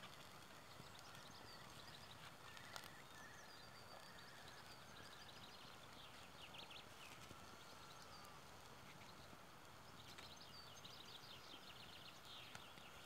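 Near silence: faint bird calls and trills in the background, with one light tap about three seconds in.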